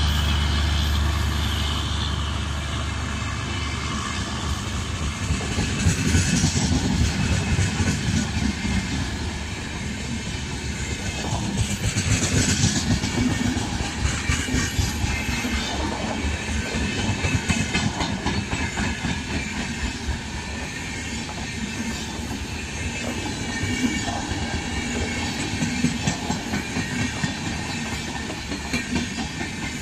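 A long rake of LHB passenger coaches passing close by at speed: a steady rumble and hiss of wheels on rail with a clickety-clack as the bogies cross rail joints. The sound swells and eases every few seconds as each coach goes by.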